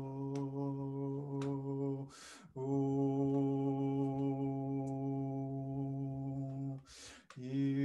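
A man's voice toning one long, steady low note. He breaks off twice for a quick audible in-breath, about two seconds in and near the end, and takes the same note up again each time.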